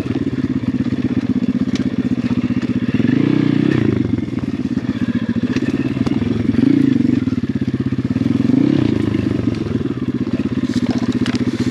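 Apollo RFZ 125cc pit bike's air-cooled single-cylinder four-stroke engine running at low revs while ridden slowly, with three short throttle rises about three, six and a half, and eight and a half seconds in.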